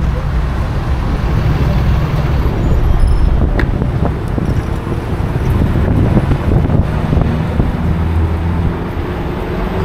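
Street traffic with a steady low wind rumble on the microphone of an action camera riding along on a moving e-bike. One short sharp click comes about three and a half seconds in.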